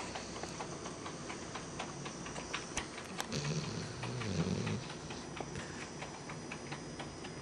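A sleeping dog snoring: one drawn-out, low snore from about three seconds in until nearly five seconds, over faint scattered clicks.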